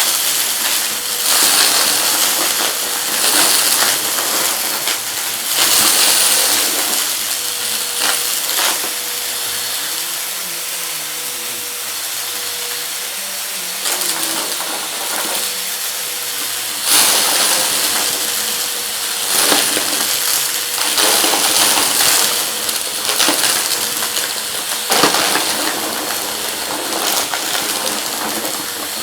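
Vacuum cleaner running with a steady motor whine and rushing air, with small hard debris rattling and clattering as it is sucked up in repeated bursts.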